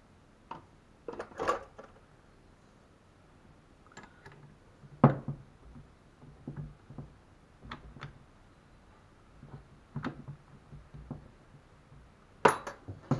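Scattered clicks and knocks of hands handling a drill chuck clamped onto an alternator's threaded shaft on a wooden bench, as the chuck is tightened. The sharpest knock comes about five seconds in and a pair near the end. The drill is not running.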